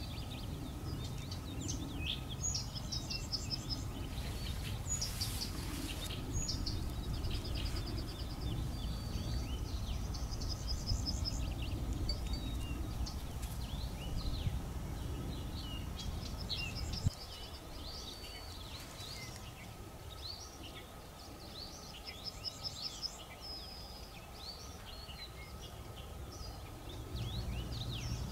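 Several small birds calling and singing: chirps, short trills and rapid runs of repeated notes, one after another. Under them is a low steady rumble that drops away after a single click about two-thirds of the way through.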